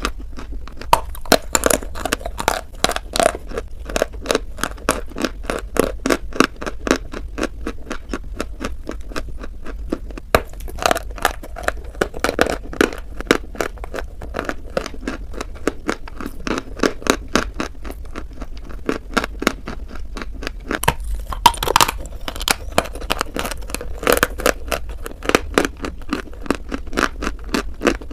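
Close-miked biting and chewing of dry white chalk, a rapid run of crisp crunches and crackles with one louder crunch about three quarters of the way through.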